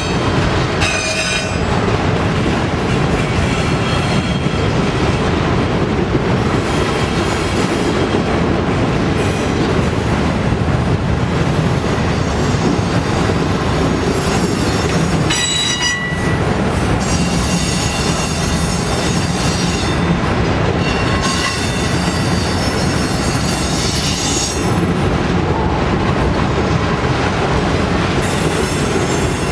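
Autorack freight cars rolling past at speed: a steady rumble of steel wheels on the rails, with high-pitched wheel squeal coming and going, strongest about halfway through.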